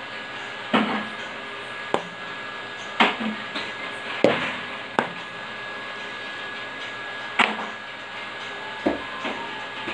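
A steady mechanical hum with a thin constant whine, likely a mixer stirring the foamy blue toilet-cleaner batch. Over it come about nine irregular sharp knocks: a plastic scoop knocking against the plastic mixing tub and the stirrer while the foam is worked.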